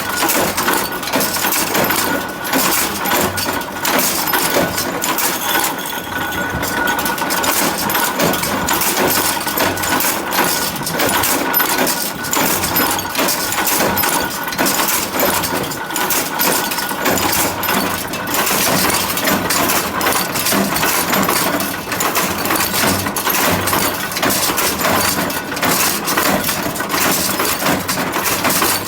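Factory machinery running, with a constant dense clatter of small metallic clicks and clinks and a faint steady whine underneath.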